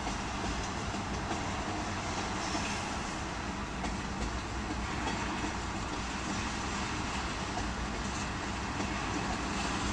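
Loaded ethanol tank cars of a P&W freight train rolling past, their steel wheels making a steady rumble on the rails.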